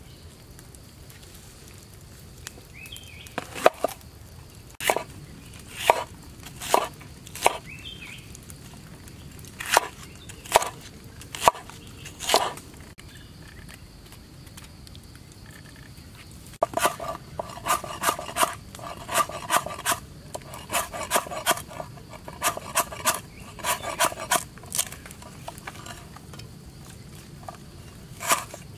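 Knife chopping on a cutting board: single knocks about a second apart, then from about halfway a quicker run of chopping strokes.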